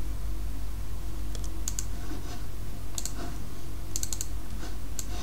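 Scattered clicks of a computer mouse and keyboard, some single and some in quick groups of two or three, over a steady low electrical hum.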